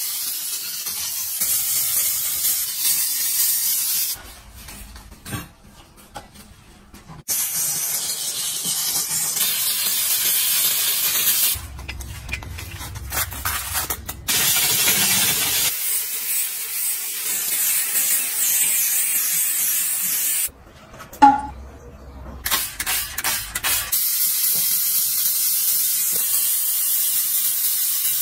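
Handheld steam cleaner jetting steam through its brush nozzle, a loud hiss in four runs of several seconds each, stopping and restarting in between. A single sharp knock about three quarters of the way through is the loudest sound.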